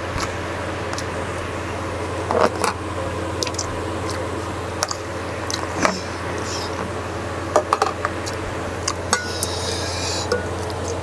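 Eating and handling sounds: scattered clicks and knocks of a plastic food container and its lid and a wooden spoon against a stainless steel pot, over a steady low hum, with a short rustling scrape near the end.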